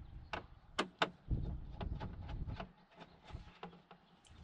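Sharp clicks and knocks of metal and plastic as a flat-screen TV is fastened to its wall mount with screws, three strong clicks in the first second or so and fainter ones after, over a low rumble of handling.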